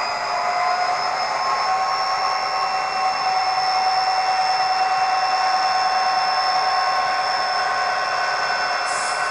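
Sound decoder's recorded EMD 20-cylinder diesel playing through a model locomotive's small speaker: the prime mover running steadily under power with a high turbocharger whine. The pitch rises a little in the first couple of seconds and then holds, with a short hiss near the end.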